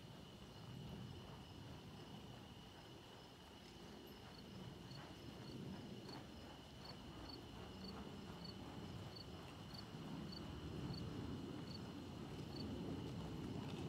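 Faint, muffled hoofbeats of a horse trotting on soft sand arena footing. A steady high hum runs underneath, and from about four seconds in a faint short high chirp repeats about twice a second.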